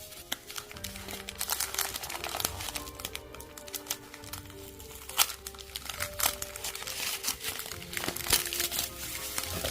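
Wrapping paper crinkling and rustling in irregular crackles as a small item is unwrapped by hand, over soft background music with held notes.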